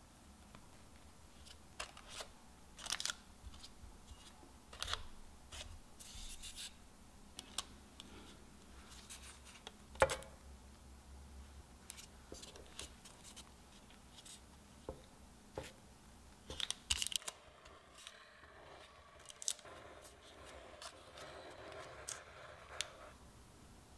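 Metal spatula and cake scraper spreading and smoothing whipped cream on a cake, with soft scrapes and light clicks and a sharper knock about ten seconds in. Toward the end comes a steadier scraping as the scraper is held against the side of the cake while the turntable turns.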